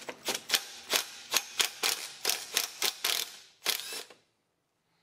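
Cordless drill/driver spinning a nut off the engine's gear, making a quick series of sharp clicks, about four a second, that stops about four seconds in.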